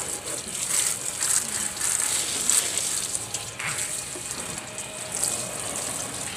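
Water spraying onto a cloth shade and onto produce: a steady hissing spray that swells and dips.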